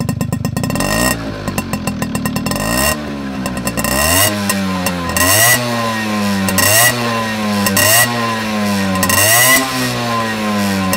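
Tomos A35 50cc two-stroke moped engine running through a Phantom RS aftermarket exhaust, revved with the rear wheel spinning free. It putters at idle, rises once slowly, then from about four seconds in gives about five quick revs, each rising and dropping back, roughly one a second.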